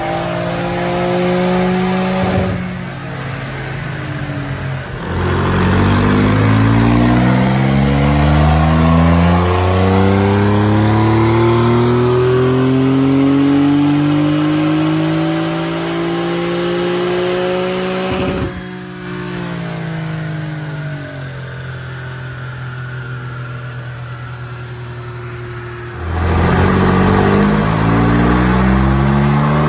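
2020 Porsche 992 Carrera 4S's twin-turbo flat-six, breathing through an Akrapovic titanium slip-on exhaust, making a dyno pull: the revs climb steadily for about thirteen seconds under load. The engine cuts off abruptly with a sharp pop as the throttle closes, and the revs fall away. Near the end a second pull begins.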